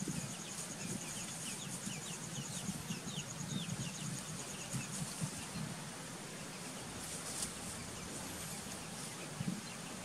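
Outdoor ambience: a small bird chirps a quick run of short rising notes, three or four a second, and a fast high insect trill runs alongside. Both stop about halfway through. A low, uneven hum lies underneath throughout.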